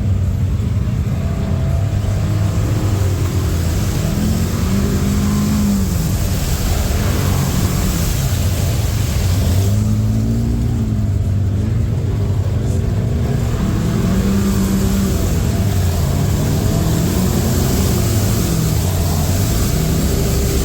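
ATV engine running on a trail ride, its pitch rising and falling repeatedly with the throttle.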